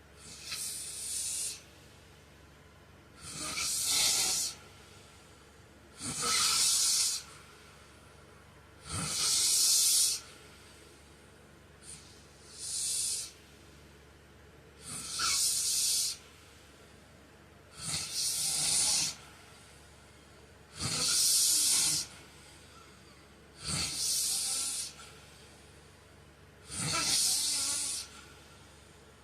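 A sleeping man snoring, a breathy, hissing breath about every three seconds, about ten in all, each lasting roughly a second.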